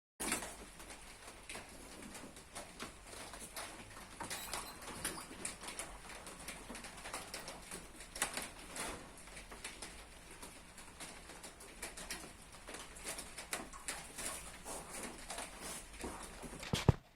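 A hot steel knife blade quenching in oil: a steady, irregular crackling and bubbling over a low hum. Near the end come a couple of sharp metal knocks.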